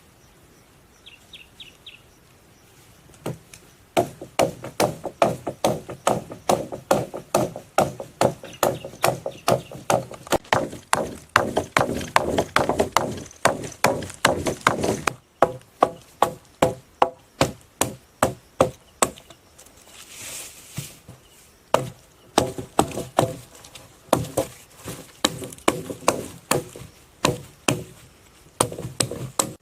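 Wood being chopped with a bladed tool in a steady run of strokes, about two a second, with a brief pause about two-thirds of the way through.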